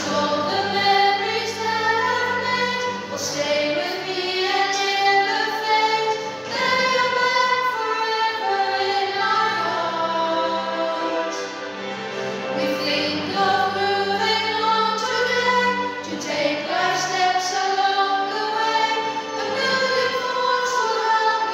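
A song: several voices singing together, with long held notes, over steady instrumental accompaniment.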